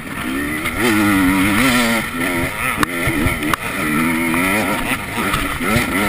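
Enduro motorcycle engine heard on board, revving up and dropping back several times as the rider accelerates and shifts along a dirt track. Two sharp knocks come near the middle.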